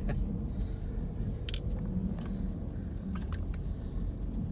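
Low, steady rumble of a Jeep Grand Cherokee V8 and its tyres, heard from inside the cabin as it creeps along a snow-covered mountain road in four-wheel drive, with a few faint clicks.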